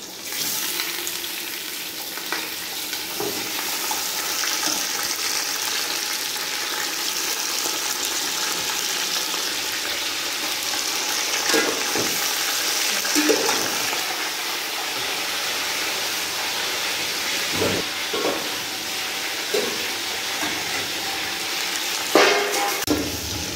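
Raw chicken pieces sizzling in hot oil and browned onions in an aluminium pot; the sizzle starts as the pieces go in. A few scrapes and knocks of a metal utensil against the pot come as the chicken is stirred.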